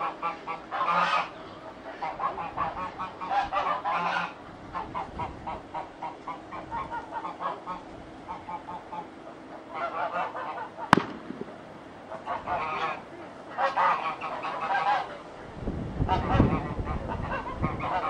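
Repeated harsh animal calls, each a short burst of rapid pulses, coming in clusters every second or two. There is one sharp click about eleven seconds in, and a low rumble builds near the end.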